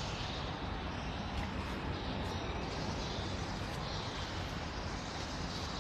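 Steady machine-shop background noise, an even rushing hum with no distinct strikes or changes.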